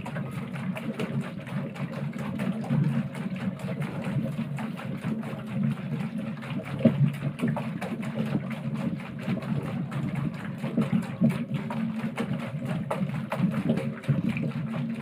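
Home-made bicycle-wheel rig with plastic bottles spinning, belt-coupled to a small motor: a steady low mechanical hum with rapid, uneven clicking throughout.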